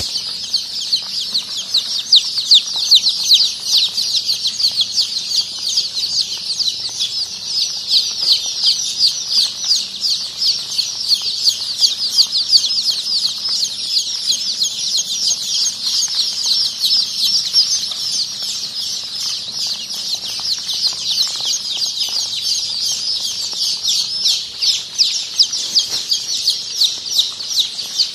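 A large flock of one-day-old Golden Misri chicks peeping nonstop, countless short, high, downward-sliding peeps overlapping into one steady chorus.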